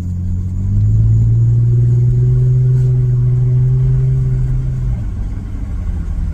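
Lexus GS350's 3.5-litre V6 running through an aftermarket axle-back exhaust, heard from inside the cabin as the car pulls away. It gives a low, deep drone that rises a step and grows louder about a second in, holds steady, then eases off about five seconds in.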